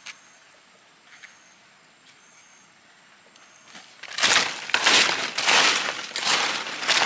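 Close, loud rustling and crunching of dry leaves and forest-floor litter, in irregular bursts starting about four seconds in after a quiet stretch.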